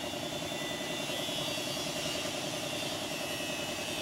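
Steady drone of an engine or motor running, with a faint high whine over it.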